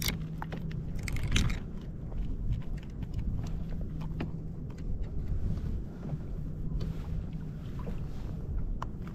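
Fishing reel being cranked to bring up a fish: a faint hum that comes and goes, with scattered clicks and taps, over a low rumble of wind and water on the kayak.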